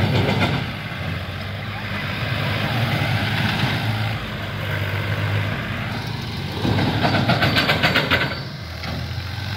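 Farm tractor's diesel engine running steadily at low speed, with a louder rattling spell lasting about a second and a half near the end.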